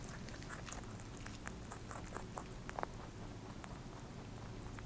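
Pet rabbit chewing a piece of strawberry: faint, quick, irregular clicks of nibbling and munching.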